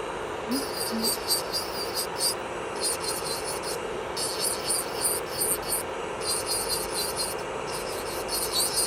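Electric nail drill (e-file) running with a steady hum, its bit grinding on the nail in short, frequent high-pitched scratchy bursts.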